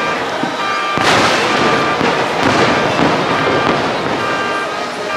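Fireworks bursting and crackling, with a loud burst about a second in, over the fireworks show's music.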